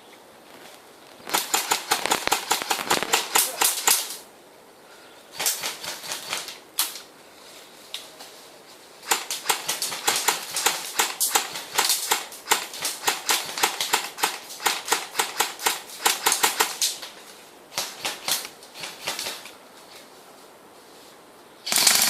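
Airsoft guns firing rapid full-auto bursts, the BB shots coming as fast, evenly spaced clicks. There are several bursts of one to three seconds and one long run of about eight seconds, with quiet pauses between. A louder continuous noise cuts in at the very end.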